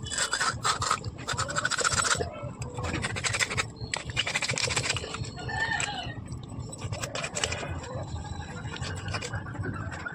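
Rustling, crinkling and scraping from hands and a knife cleaning a catfish over a plastic bag, coming in bursts that are densest in the first half.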